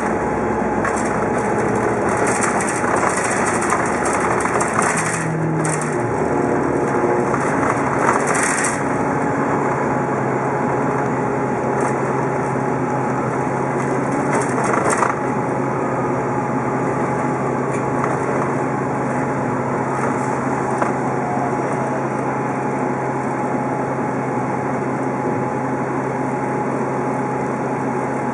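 Interior of an Orion VII hybrid-electric transit bus on the move: a steady drivetrain hum with road and body noise, and a few brief louder noisy swells in the first half.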